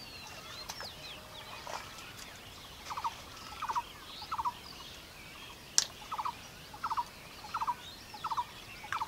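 Birds chirping, joined about three seconds in by a repeated animal call of short, quick rattles, each a burst of three or four rapid pulses, about eight of them, a little under a second apart. One sharp click midway is the loudest moment.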